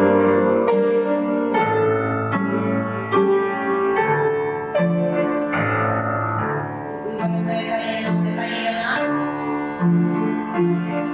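Piano music with a steady beat, played as accompaniment for a folk-dance barre exercise.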